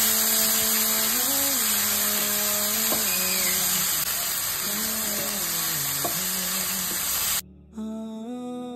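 Chicken pieces sizzling in hot oil in a non-stick frying pan as a spatula turns them, under a background song. The sizzle cuts off suddenly near the end, leaving the music alone.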